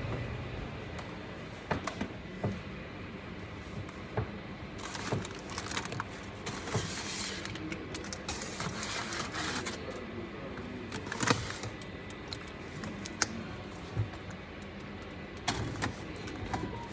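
Containers and food items being handled and moved about: scattered clicks and knocks, with a stretch of rustling in the middle and a sharper knock about eleven seconds in.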